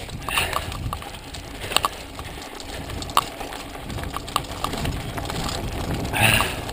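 Mountain bike descending rough dirt singletrack at speed: a steady rumble of tyres on the trail, with sharp clicks and knocks from the bike's chain and frame as it hits roots and rocks. There is a louder clattering burst near the end.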